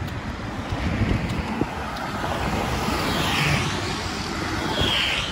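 Road traffic on a town street: passing vehicles, loudest as one goes by about three seconds in and again near the end, with some wind on the microphone.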